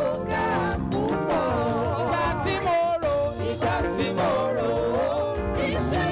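Live gospel music: a voice singing a wavering, ornamented melody over band accompaniment with a steady beat.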